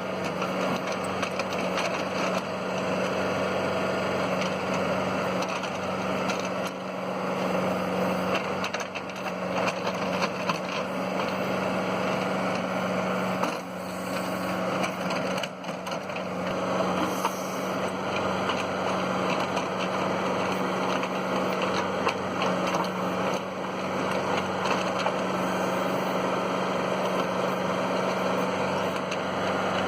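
Kubota tractor's diesel engine running at a steady speed as the tractor fills a ditch back in with dirt.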